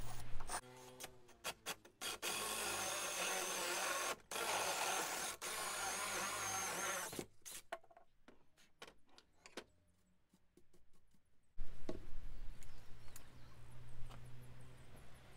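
Cordless drill working on a round MDF lid: a few short runs, then one steady run of about five seconds with a slightly wavering whine. After that come quiet clicks and light knocks of parts being handled.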